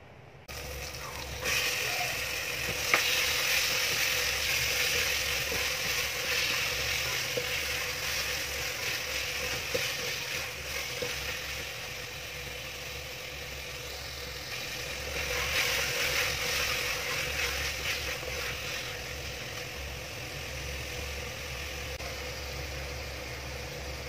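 Chicken pieces sizzling in a steel pot over a gas flame while being stirred with a wooden spatula, the sizzle louder in two stretches during the stirring.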